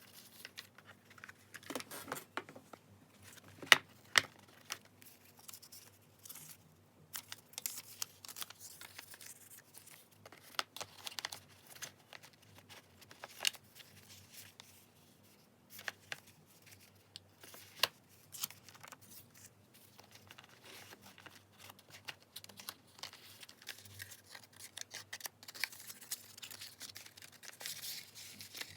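Paper and stationery being handled for journal decorating: irregular rustles, soft taps and sharp clicks with short pauses between them, the loudest click about four seconds in.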